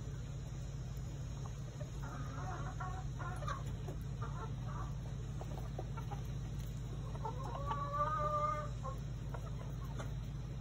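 Chickens clucking in short scattered calls, with one longer, level call lasting about a second and a half near the end, over a steady low rumble.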